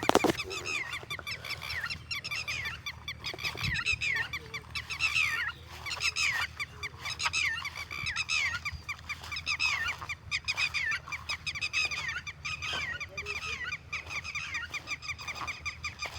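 A flock of birds calling without a break: many short, falling calls overlapping one another, with a sharp knock right at the start.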